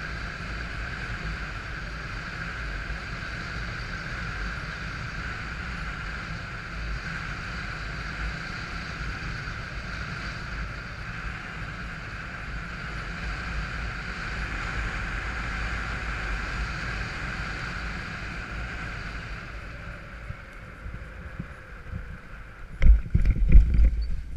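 Paramotor engine and propeller running steadily under wind rush during a gliding descent; the sound dies away near the end, followed by a few heavy thuds as the pilot's feet hit the ground on a fast touchdown.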